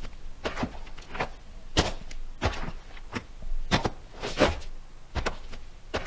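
Footsteps sound effect of boots walking on rocky dirt, a crunchy step about every two-thirds of a second, around eight steps in a steady walking rhythm.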